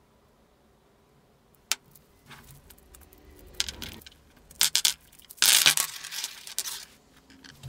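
Steel roller bearing being taken apart to free its inner race: a sharp metallic click, then short clattering rattles and a longer, louder scraping rattle of metal parts in the second half.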